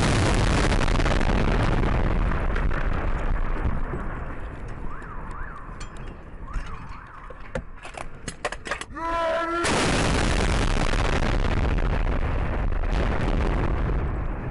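Close explosion: a long, loud rushing roar as the blast throws up dust. It is followed by a string of sharp gunshot cracks, a man's shout and a second long, loud rush of noise near the end.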